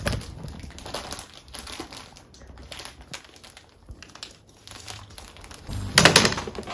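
Plastic crinkling and rustling, with a louder burst of rustle and clatter about six seconds in as the plastic panels are handled.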